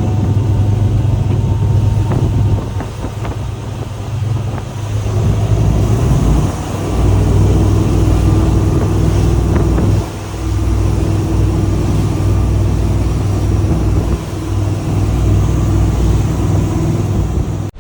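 Boat engine running steadily under way, with wind and water noise over the hull; the level dips briefly a few times.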